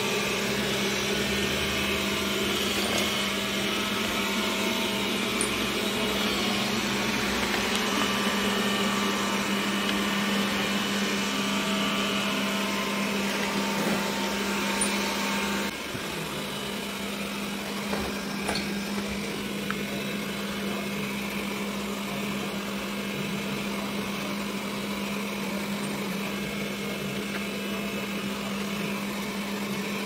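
Xiaomi Mi Robot Vacuum running: the steady whir of its suction fan and brushes over a constant low hum. It gets a little quieter about halfway through.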